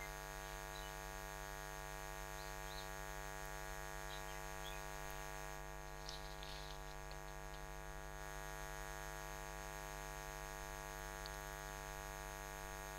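Steady electrical mains hum, a buzz made of many even tones picked up by the recording chain, with a few faint ticks around the middle.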